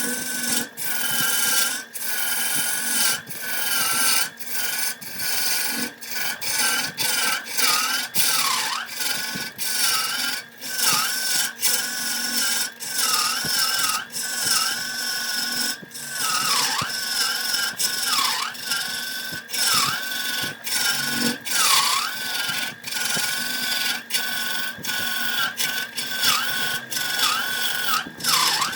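Wood lathe running with a steady high whine that sags in pitch over and over, under quick, dense scraping as a cutting tool works the spinning wood.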